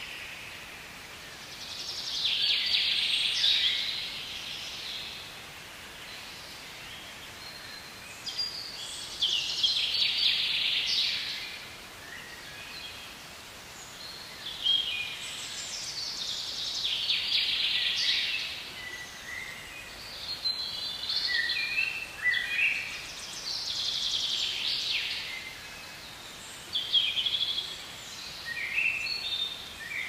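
Songbirds singing, phrases of quick high chirps and trills recurring every few seconds, over a faint steady hiss.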